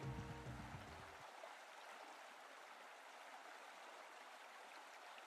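Faint, steady trickling and lapping of swimming pool water, after a music cue fades out in the first second.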